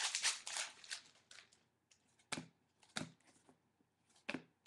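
Foil trading-card pack being torn open and crinkled for about the first second, then three sharp snaps as the cards inside are flicked through.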